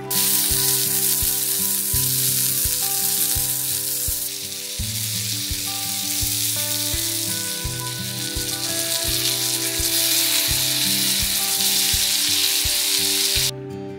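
Oysters frying in butter in a small frying pan: a steady, loud sizzle that cuts off abruptly near the end.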